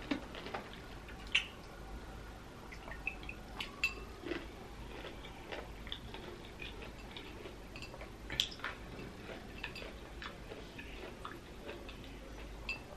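Close-miked eating of a large pickle. A sharp crunch as it is bitten right at the start, then irregular crunching and wet mouth clicks as it is chewed.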